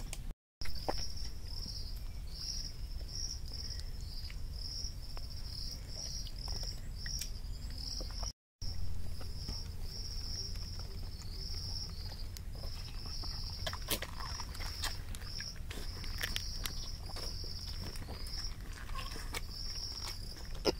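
Insects chirping in a steady chorus of repeated high-pitched pulses, about two a second, over a low outdoor rumble, with scattered sharp clicks, more of them in the second half.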